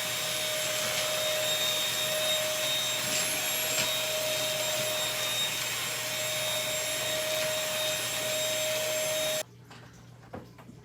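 Household vacuum cleaner running steadily with a steady whine, then switched off about nine and a half seconds in, followed by a few light clicks. The vacuum is acting up, dumping what it picked up back out.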